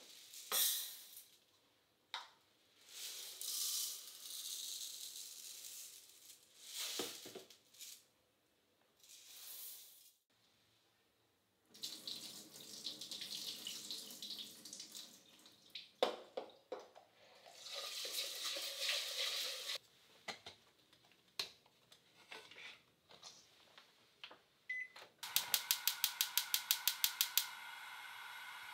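Kitchen tap water running on and off into a stainless steel pot as it is rinsed and swirled. Near the end, a gas stove's igniter clicks rapidly, about six times a second for some two seconds, and the burner catches with a steady hiss.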